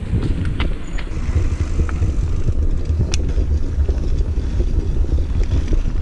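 Steady low rumble of wind buffeting the rider's camera microphone and a mountain bike rolling over a dirt trail, with a few sharp clicks and rattles from the bike.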